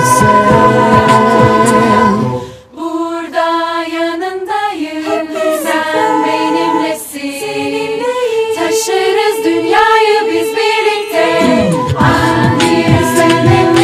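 Choir singing in multi-part harmony. The low accompaniment drops out after a couple of seconds, leaving the voices alone on held chords. The fuller backing comes back in near the end.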